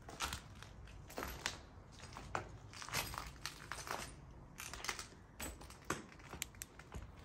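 Footsteps crunching over plaster rubble, gravel and broken debris on a concrete floor: irregular gritty crunches, about one or two a second.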